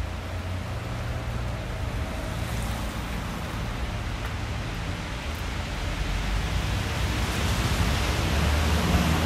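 Wet city street ambience: a steady hiss of falling wet snow on wet pavement, under a low traffic rumble that grows louder near the end.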